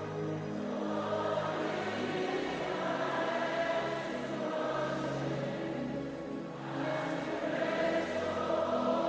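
Soft sustained worship music: held chords with a choir or congregation singing quietly, between lead vocal lines.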